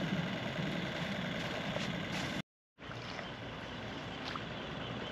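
Steady outdoor noise of water moving along a shoreline. The sound cuts out completely for a moment about halfway through, then carries on.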